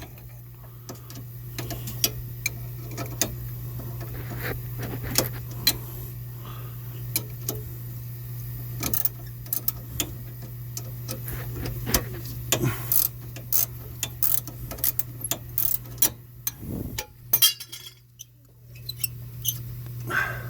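Irregular metallic clicks and knocks of hand tools working a badly rusted, heated part loose, over a steady low hum.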